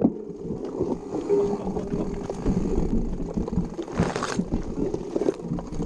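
Mountain bike riding over rough trail: tyres rolling on dirt and gravel and the bike rattling and knocking over bumps, with a short rushing hiss about four seconds in.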